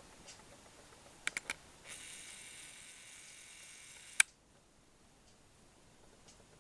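Camera handling sounds: three small clicks, then a steady motor whirr, typical of a camera's zoom motor, running for about two seconds and stopping with a sharp click.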